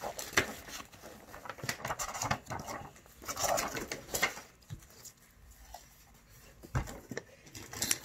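Paper and thin card rustling and crackling as an activity booklet and a card stencil are handled, in irregular soft taps and crinkles, with one louder thump near the end.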